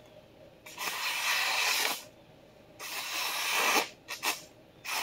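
Freshly sharpened vintage Clyde Cutlery chef knife slicing down through a hand-held sheet of newspaper: two slices of about a second each, a couple of quick ticks, and a third slice starting at the very end. It is a paper cut test of the new edge, which comes out pretty sharp.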